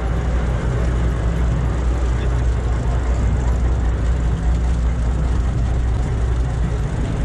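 Sportfishing boat's engine running, a steady low rumble, with a hiss of wind and sea over it.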